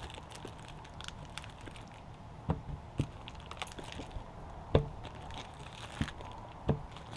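Plastic sausage packaging crinkling as it is worked open, with scattered small crackles and a handful of sharper knocks.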